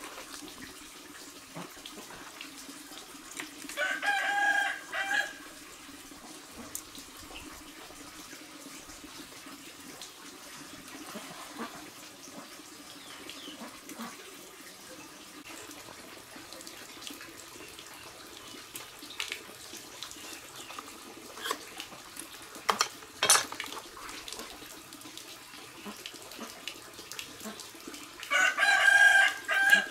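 A rooster crows twice, about four seconds in and again near the end, each crow about a second and a half long, over a steady hiss. A single sharp knock comes about two-thirds of the way through.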